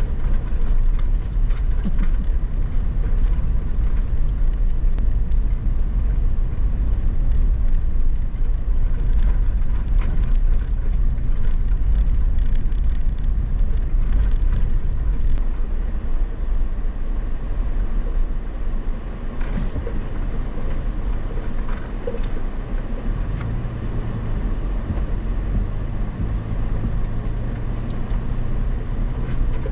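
Off-road vehicle driving along a dirt trail: a steady engine and road rumble, with scattered small clicks and knocks from gravel and rough ground.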